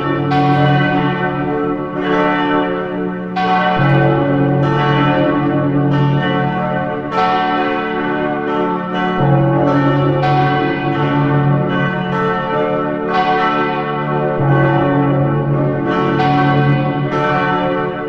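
Several church bells pealing, a new stroke every second or so, their tones ringing on and overlapping one another.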